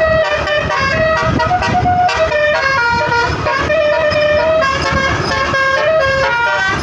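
Basuri telolet horn, a multi-note bus horn, playing a melody: a continuous run of short and held notes stepping up and down in pitch.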